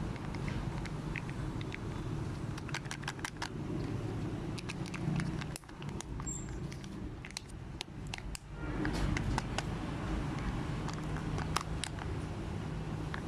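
Packaging being handled: irregular sharp clicks and crackles of wrappers and plastic, over a steady low rumble of background noise.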